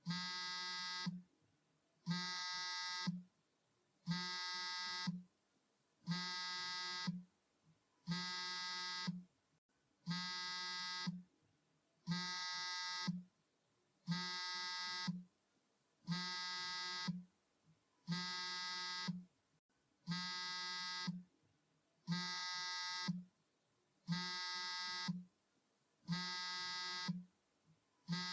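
Mobile phone on vibrate, buzzing in a regular pattern: a steady, pitched buzz of a little over a second, then about a second of silence, repeated some fourteen times.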